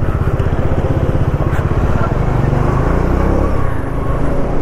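Motorcycle engine running at low speed, with a steady low pulsing beat, heard from the rider's seat.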